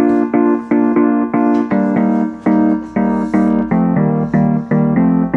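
Background music: an electric piano playing evenly repeated notes, a little under three a second.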